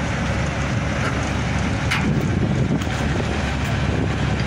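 Crane engine running steadily with a constant low hum, wind buffeting the microphone, and a couple of light knocks near the middle.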